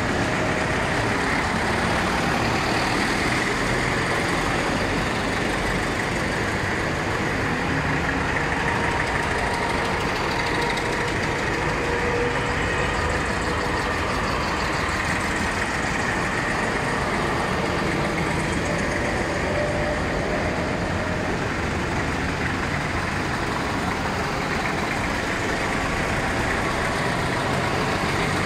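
A procession of Porsche Diesel tractors driving past one after another, their air-cooled diesel engines running steadily.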